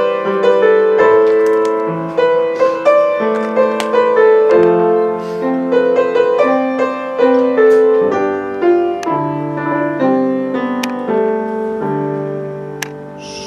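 Slow instrumental keyboard music, piano-like, with sustained chords that change about once a second and a few high bell-like notes over them.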